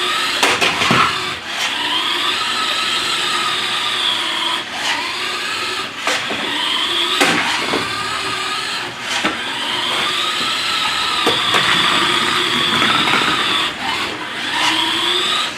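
Remote-control toy drift car's small electric motor whining, its pitch rising and falling as it speeds up and slows, with a few short knocks along the way.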